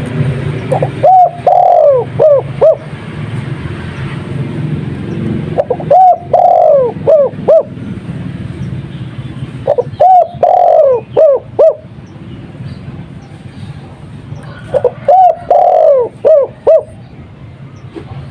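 Spotted dove (tekukur) of the Madura 'kuk 2' song type cooing: four repeated phrases about four to five seconds apart. Each phrase is a couple of short notes, then a longer falling coo, then a few short notes.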